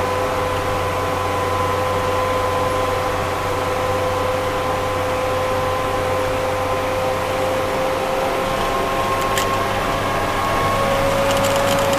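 Vehicle running at a steady, slow cruise, heard from inside the cab: engine hum and road noise, with a steady whine whose pitch creeps slightly higher toward the end.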